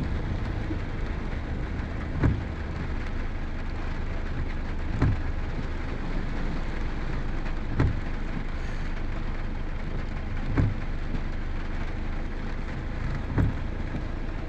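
Heavy rain falling steadily, with a short thump repeating about every three seconds.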